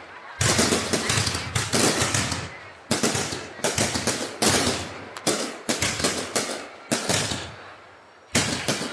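Fireworks exploding: a rapid, irregular series of loud bangs, each trailing off in a short crackle, with a lull about seven seconds in before another bang near the end.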